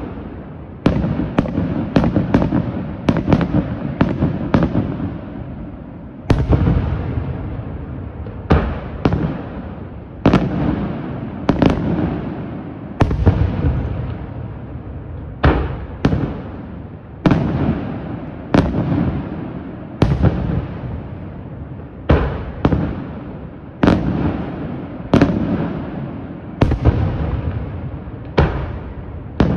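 Aerial firework shells bursting one after another, about one sharp bang a second and faster in the first few seconds. Each bang trails off in a rumbling echo.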